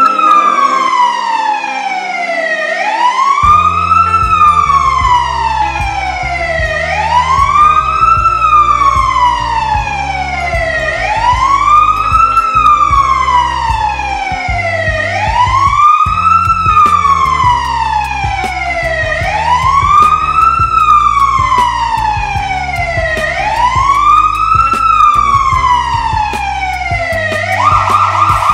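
Electronic ambulance siren in wail mode, the pitch rising quickly and falling slowly about every four seconds, switching to a fast warble near the end. Background music runs under it.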